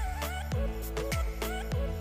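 Background music with a steady beat: a deep kick drum about twice a second under a wavering melody.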